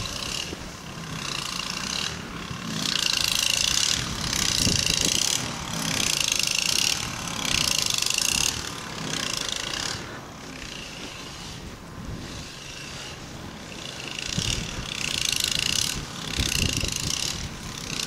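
Footsteps crunching and squeaking through deep, cold snow, about one step a second. The steps are louder in two stretches, and softer for a few seconds in the middle.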